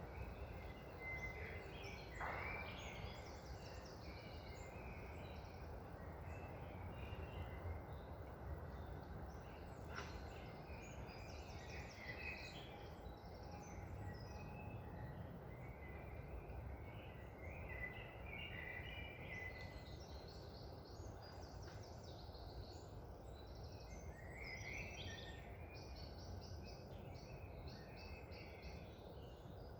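Several songbirds chirping and singing over a steady rush of wind through trees.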